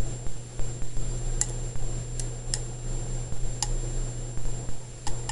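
About five small sharp clicks and taps at irregular intervals over a steady low hum, with a faint steady high whine. The clicks are typical of metal electrodes and leads being handled while the arc setup is readied.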